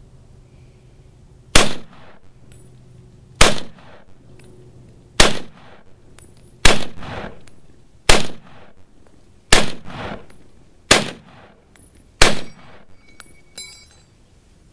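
M1 Garand .30-06 semi-automatic rifle fired eight times in steady succession, a shot every second and a half or so, each crack followed by a short echo, emptying the rifle. Just after the eighth shot comes a brief metallic ping: the empty en bloc clip ejecting.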